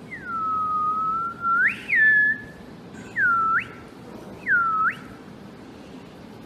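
A person whistling a few clear gliding notes: a long low note that sweeps up sharply at its end, a short higher note, then two quick swoops that dip and rise.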